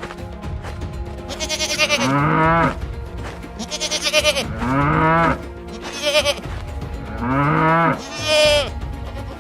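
Sheep bleating over background music: three long wavering bleats about two and a half seconds apart, with shorter buzzy calls between them.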